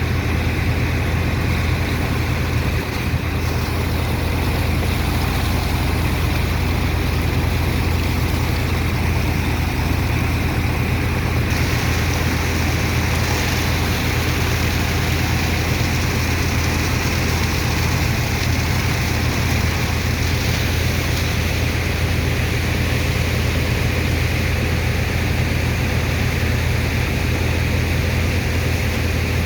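Heavy engine on a sand dredger ship, working its sand pump, running steadily with a strong low hum. More hiss joins about a third of the way in.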